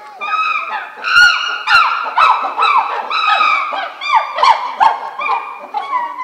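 Several chimpanzees calling loudly: rapid, overlapping high-pitched calls, several a second, each rising and falling. The males are excited as they wait for their evening feed.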